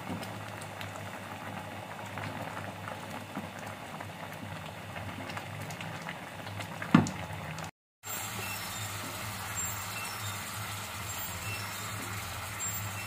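Grated carrots and milk for gajar ka halwa bubbling and simmering in a kadhai on a gas stove, being stirred with a wooden spatula, over a steady low hum. The milk is cooking down with the carrots. One sharp knock comes about seven seconds in.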